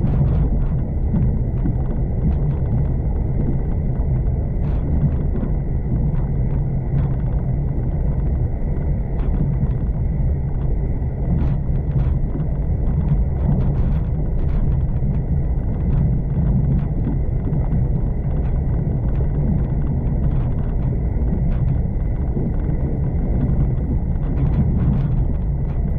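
V/Line passenger train running along the line: a steady low rumble of wheels on rail, with frequent small clicks and rattles and a faint steady high whine.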